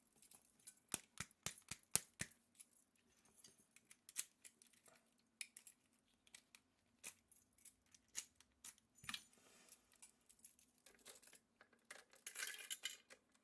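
Small, sharp metal clicks and taps from lock-picking tools working in a brass padlock, a quick run of them at first, then scattered, with a short scraping rustle near the end.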